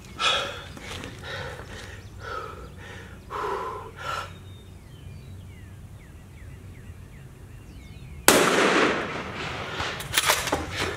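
Hard, rapid breathing after an all-out workout set, then a single sharp 6.5 Creedmoor rifle shot about eight seconds in. The shot is by far the loudest sound and fades out over most of a second, and the breathing picks up again after it.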